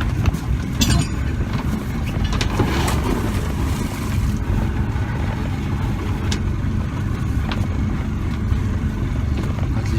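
Motorboat engine running steadily at low speed, with a dense low rumble of wind on the microphone and a few short knocks in the first few seconds.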